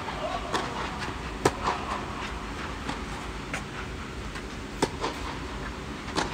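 Tennis rally on a clay court: a ball struck back and forth by racket, about five sharp hits one to two seconds apart, over a steady low hum.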